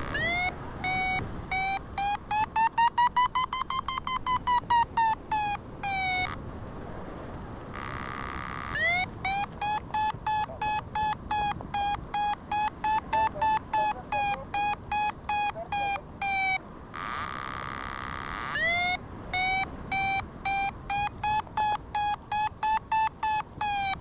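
Paragliding variometer beeping in rapid runs of electronic beeps. The pitch climbs and then falls, and the beeps speed up and slow down, which signals the glider climbing in lift. The beep runs break twice for a few seconds of a steadier, fainter buzzing tone.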